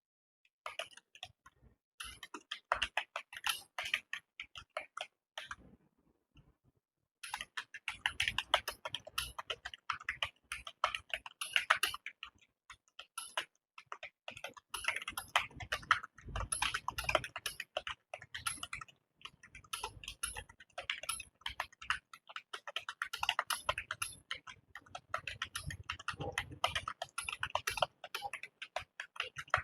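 Fast, continuous typing on a computer keyboard: a dense run of key clicks that stops for a second or so about six seconds in, then resumes.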